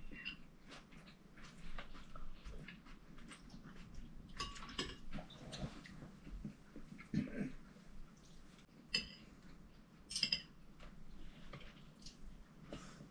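Spoons and forks clinking against china plates and soup bowls during a meal, with a few sharper clinks standing out, and soft sounds of sipping clear soup from a spoon.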